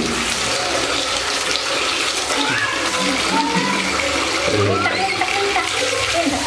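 Tap water pouring steadily into a water-filled aluminium basin, splashing as a baby macaque is held and rinsed under the stream.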